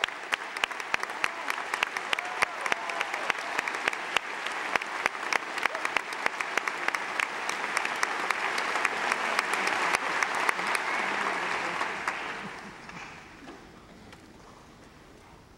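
Theatre audience applauding: dense clapping that grows fuller, then dies away about twelve seconds in.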